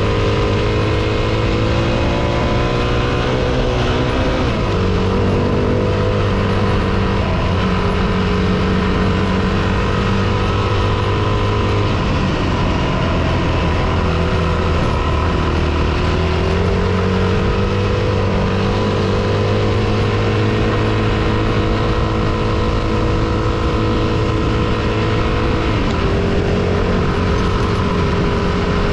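Single-cylinder four-stroke dirt bike engine running under way, close to the camera. Its pitch rises and falls several times as the throttle opens and closes, over a steady rush of noise.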